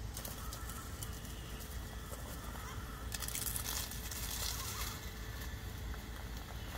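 Radio-controlled rock crawler with a Castle 2280kv brushless motor crawling over stones: drivetrain whir with scraping and clicking of tyres and chassis on rock, busiest from about three to five seconds in.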